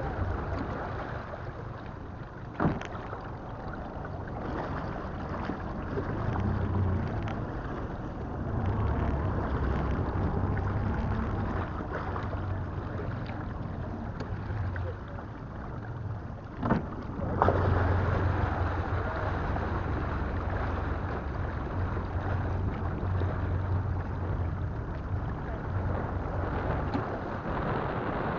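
Wind buffeting the microphone on a fishing boat, the low rumble swelling and fading in gusts, with a few sharp knocks against the boat: one a few seconds in and a pair just past the middle.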